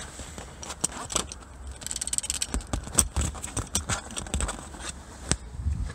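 Hands refitting a plastic engine-bay cover and its screws: a run of plastic and metal clicks, scrapes and rattles, busiest around the middle.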